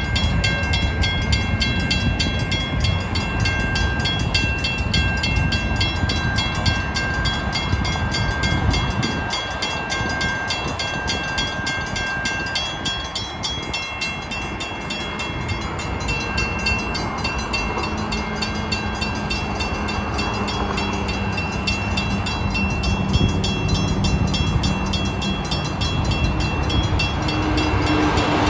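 Railroad grade-crossing bell ringing continuously over the low rumble of an approaching Pacific Surfliner train's diesel locomotive; the train noise builds and is loudest near the end as the train reaches the crossing.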